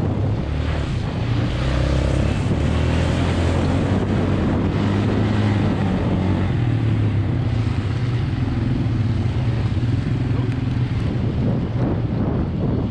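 ATV (quad bike) engine running under way, its pitch shifting up and down with the throttle.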